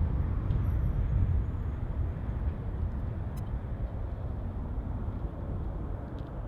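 Twin-engine jet airliner's engines at takeoff thrust, heard as a distant low rumble that fades slowly, mixed with strong wind buffeting the microphone.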